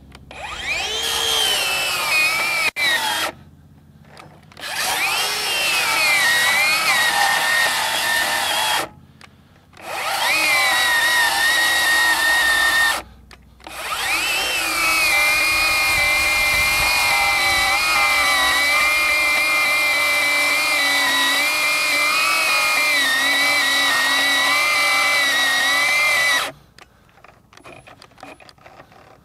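Ryobi One+ HP 18V brushless 7-1/4-inch circular saw making a full-depth cut through a pressure-treated 4x4, its motor pitch sagging under the load. The saw cuts out and is restarted three times, then runs steadily through a longer stretch and stops near the end.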